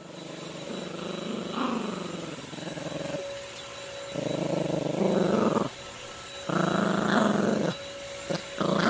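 Yorkshire terrier puppy play-growling with a plush toy in its mouth: one long wavering growl over the first few seconds, then three louder growls of about a second each with short pauses between.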